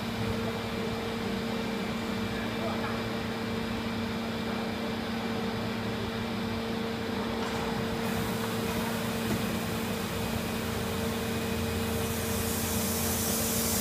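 Large hydraulic injection moulding machine for HDPE pipe fittings running with a steady hum, two constant low tones over an even machine noise. About twelve seconds in, a hiss rises and grows louder.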